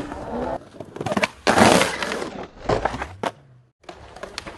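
Skateboard wheels rolling on concrete, with sharp clacks of the board popping and landing and a loud rush of noise about one and a half seconds in. The sound drops out briefly near the end, then rolling and clacks start again.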